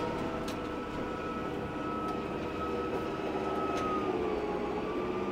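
Tractor engine running steadily while pulling a hay rake, a constant drone with a whine on top whose pitch dips slightly about four seconds in.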